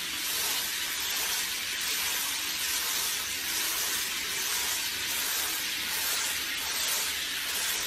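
Steady hiss of water spraying from a handheld shower head onto a dog in a bath.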